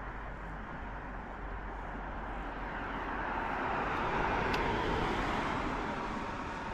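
A Tesla electric car passing by: tyre and road noise with no engine note, swelling to a peak about four seconds in and then fading.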